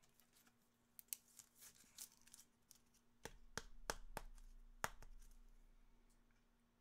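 Trading cards being handled by hand: a scatter of faint, short clicks and slides as the cards are moved and sorted. A faint low rumble joins in from about three seconds in.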